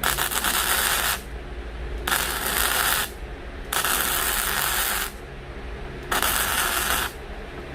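Steel plate being cut with a power cutting tool in four short bursts of about a second each, a harsh hissing noise that starts and stops abruptly.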